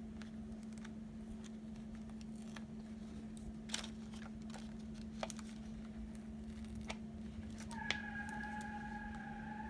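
Faint scattered clicks and ticks of adhesive vinyl being picked and peeled away by hand, over a steady low hum; a steady higher tone joins near the end.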